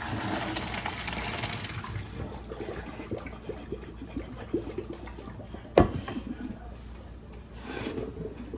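Hot pasta water being poured off into a sink, running for about two seconds, then small knocks and clatters from the pot and draining pasta, with one sharp loud knock about six seconds in and a brief splash of water near the end.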